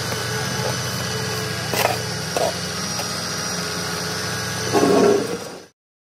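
A truck engine running steadily, with brief knocks about two seconds in and a louder clattering burst near the end as branches are handled; the sound then cuts off abruptly.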